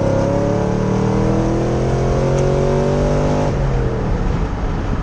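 2010 Camaro SS's V8, with an aggressive cam, long-tube headers and Borla ATAK axle-backs, accelerating hard under load, its note climbing steadily in pitch before dropping off suddenly about three and a half seconds in. It runs clean, with the header gasket and spark plugs freshly replaced and no ticking exhaust leak or misfire.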